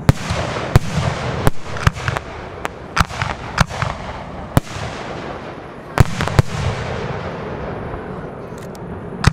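Aerial firework shells going off in a professional display: about ten sharp bangs at irregular intervals, the loudest near the start and about six seconds in, over a steady hiss of noise between them.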